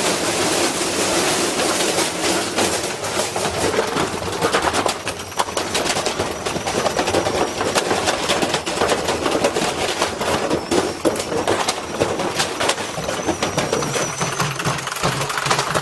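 Washing machine running with a heavy iron weight loose in its drum, the unbalanced load battering the drum and cabinet in a loud, continuous, rapid metallic clatter.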